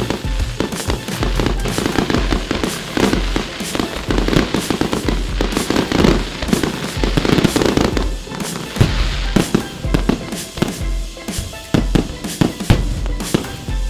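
Fireworks bursting and crackling in rapid succession, densest in the middle, over music with a steady bass beat.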